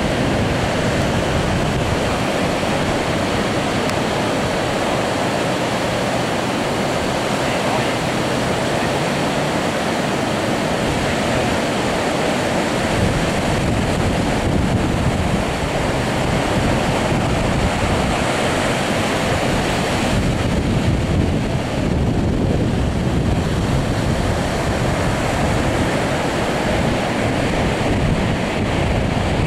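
Ocean surf breaking on the beach in a steady rush, with wind rumbling on the microphone.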